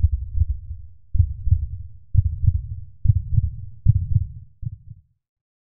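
Heartbeat-like sound effect: deep, low thumps in pairs, about one pair a second, ending shortly before the close.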